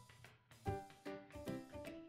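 Background music: a light melody of separate notes, each starting sharply and fading, at about two or three notes a second.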